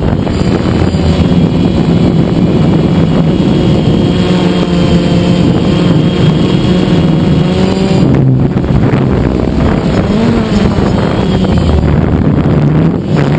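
DJI Phantom quadcopter's electric motors and propellers buzzing loudly, heard up close from the camera mounted on the drone. The pitch dips and rises again a little about two-thirds of the way through.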